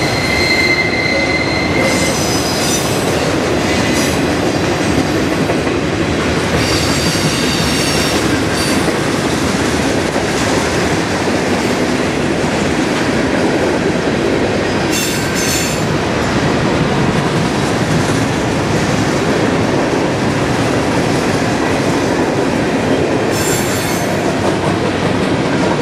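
Freight train cars rolling steadily past with a continuous rumble of steel wheels on rail. A thin wheel squeal sounds in the first couple of seconds, and short high squeals recur a few times.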